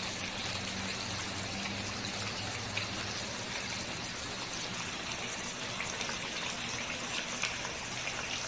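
Wontons deep-frying in hot oil in an electric skillet: a steady sizzle of bubbling oil, with a faint low hum underneath.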